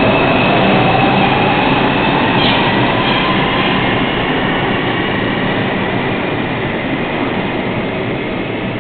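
R142 New York City subway train running on the track: a continuous rumble and rail noise, with a faint high wheel squeal in the first few seconds, growing gradually quieter.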